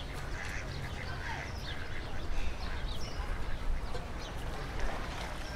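Outdoor park ambience: ducks quacking and small birds chirping in scattered short calls, over a steady low rumble.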